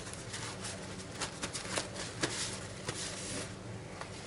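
Paper towels crinkling and rustling in a run of small crackles as they are pressed onto a wet, beet-cured salmon fillet to blot it dry and then peeled off it.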